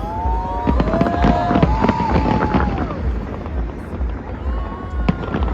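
New Year's Eve fireworks going off: a dense scatter of bangs and crackles, with a few drawn-out gliding tones over them in the first half.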